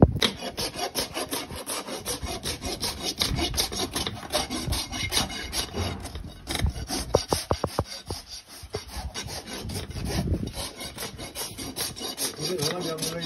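Farrier's rasp filing a horse's hoof: repeated rough scraping strokes, a few a second, with a few short metallic clinks about seven seconds in.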